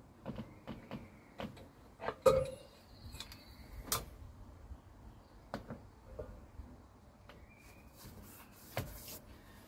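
Scattered clicks and knocks of objects being handled, the loudest a single clunk about two seconds in and a sharp knock a little later.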